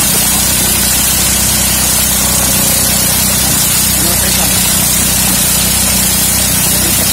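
Engine-driven corn sheller running steadily: the small engine's hum under a dense, loud hiss of cobs and kernels being threshed.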